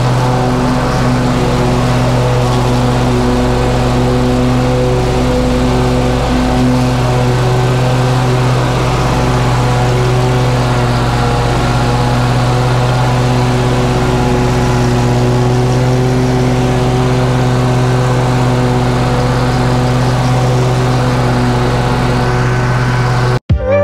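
Toro Grandstand stand-on mower's engine running at a steady mowing speed with the blades engaged. Near the end it cuts off suddenly into music.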